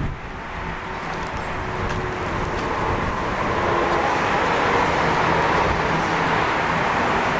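Car engine and road noise, growing gradually louder.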